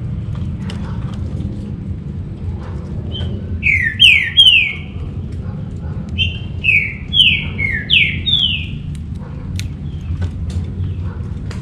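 Green-winged saltator (trinca-ferro) singing: a quick phrase of three loud falling whistled notes, then after a short pause a longer run of about six. A steady low rumble runs underneath, and a few faint clicks come near the end.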